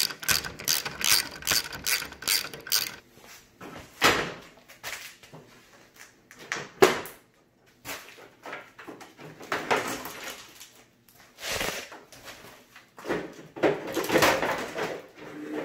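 Socket ratchet clicking at about four clicks a second as a 10 mm bolt is backed out. From about four seconds in come scattered knocks and rattles as the grille is worked free of its push pins, busiest near the end.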